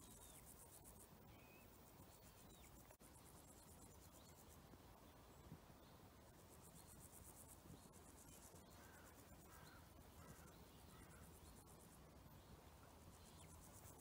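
Faint, high-pitched insect stridulation, a rapid buzzy trill that comes in bouts of a second or so and stops again, with a few faint short chirps between them.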